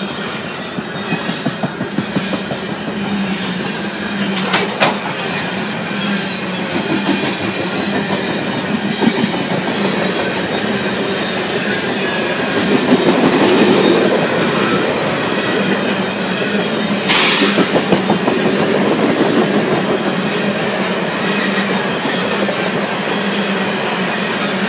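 Freight train of loaded coal cars rolling past, wheels clicking over the rail joints with some wheel squeal under a continuous rattle. There are a few sharp clicks, and a brief loud burst of noise about 17 seconds in.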